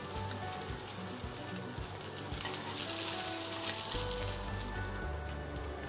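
Salmon steaks sizzling in hot oil in a non-stick frying pan, cooked through. The sizzle thins out near the end as the fish is lifted out.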